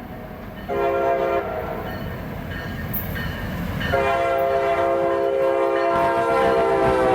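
Freight locomotive air horn: a short blast about a second in, then a long, steady blast from about four seconds in, over the low rumble of the moving train.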